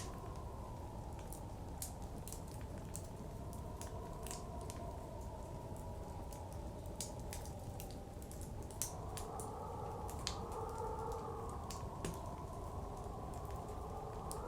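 Wood fire crackling with irregular sharp pops, over blizzard wind blowing steadily, its pitch slowly rising and falling and swelling about nine seconds in.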